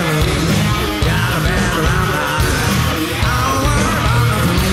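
Live hard-rock band playing with electric guitars, bass and drums, and a male lead singer singing over them.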